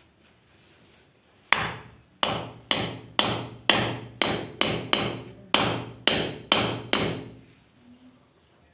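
About a dozen sharp hammer blows on a steel rod or punch held against a Tullu water pump's cast-iron housing, roughly two a second. Each blow rings briefly, as metal on metal does, while the pump's shaft seal is being worked on.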